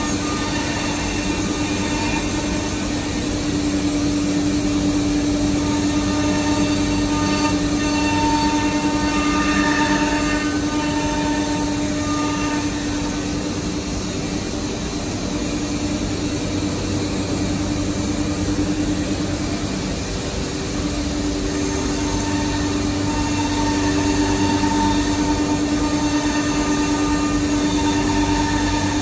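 Woodtron W3618 CNC overhead router running and machining a board on its vacuum table: a steady mechanical hum with one constant low tone, and higher tones that come and go as the head moves.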